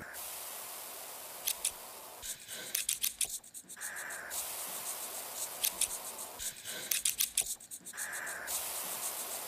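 Quiet, hissy opening of an intro beat: a steady hiss with scattered clicks and brief short tones, in a pattern that repeats about every four seconds.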